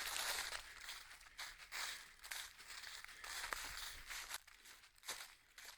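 Footsteps crunching and rustling through dry fallen leaves on a steep trail, in an uneven walking rhythm with a few sharper crackles.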